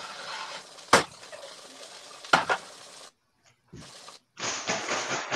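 Food sizzling in a skillet on a stovetop, heard through a phone's microphone on a video call, with two sharp knocks about one and two and a half seconds in. The sound cuts out briefly a little past halfway, then the sizzling hiss returns.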